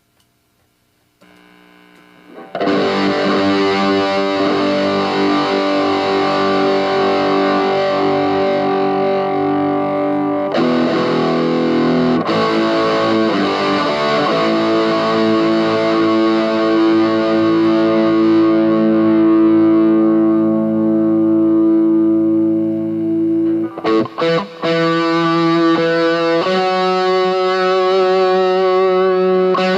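Fernandes TEJ-70 electric guitar played through distortion. After a short silence it plays long, ringing overdriven chords, which cut out briefly twice about three-quarters of the way through before a quicker run of picked notes.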